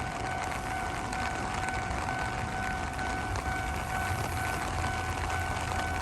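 Japanese level-crossing warning bell ringing its repeated electronic 'kan-kan' tone without a break, over the low rumble of a Hankyu train.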